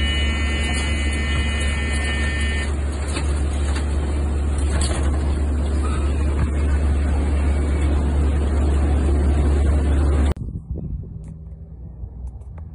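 Antonov An-32 twin-turboprop transport heard from its open jump door: a loud, steady engine drone with rushing air, and a high whine during the first few seconds. About ten seconds in it cuts off suddenly to a much quieter outdoor sound with faint wind.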